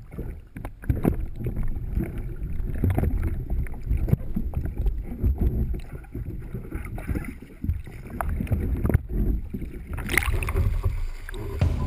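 A Necky Chatham 17 sea kayak out in surf: water splashing and rushing against the hull, with an uneven low rumble and frequent knocks throughout. A hissier wash of water comes in near the end.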